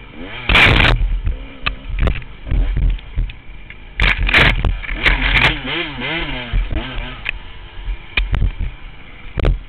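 Honda CR125 two-stroke dirt bike engine revving on a trail ride, its pitch rising and falling again and again as the throttle is worked, with several loud rushing bursts of noise over it.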